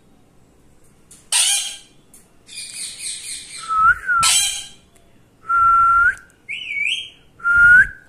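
Indian ringneck parakeet calling: two harsh screeches and a stretch of raspy chatter, mixed with several clear whistled notes, most held steady, one higher and wavering, the last turning upward at its end.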